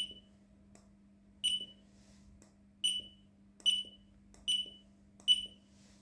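Handheld barcode scanner beeping as it reads barcodes: six short, high beeps about a second apart, each one confirming a good read.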